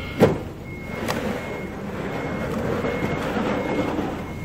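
A vehicle's reversing alarm beeping steadily in short, high, evenly spaced beeps. About a quarter-second in there is a single sharp thud, as a heavy moray eel is dropped into a plastic fish crate.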